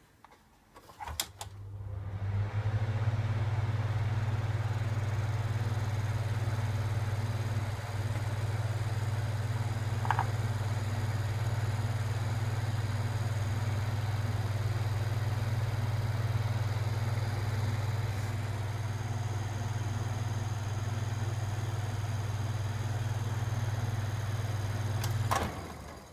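Sinko KP-252S ventilation fan switched on with a click, its motor spinning up within a couple of seconds to a steady hum with the rush of the blades. Near the end it is switched off with another click and winds down.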